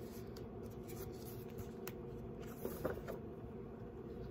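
Quiet room tone with a steady low hum, and a few faint rustles and clicks as a hardback picture book is opened and its pages handled, clustered about three seconds in.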